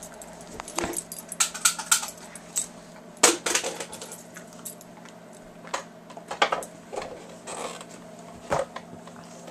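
Two dogs play-wrestling on a couch: irregular sharp clicks and rattles from their scuffling, in several short flurries.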